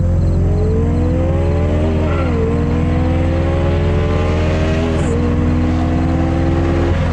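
Honda S2000's four-cylinder VTEC engine accelerating hard, its pitch climbing through the revs, then dropping sharply twice as it shifts up and climbing again, before settling to a steadier note near the end. A steady low rumble runs underneath.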